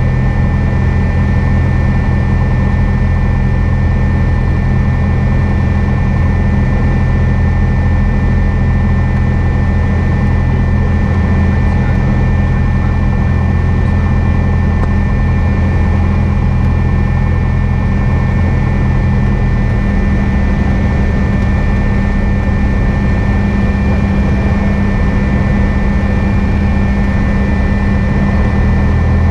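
Cessna 172's piston engine and propeller droning steadily, heard from inside the cockpit. The low engine tones shift about two-thirds of the way through.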